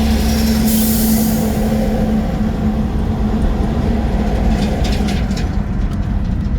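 Steady road and engine rumble inside a moving vehicle on a highway, with a low drone that fades after about two seconds, a brief hiss about a second in, and a few light rattles near five seconds.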